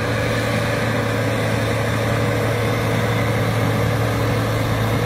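Crawler dozers' diesel engines running steadily, a low even drone.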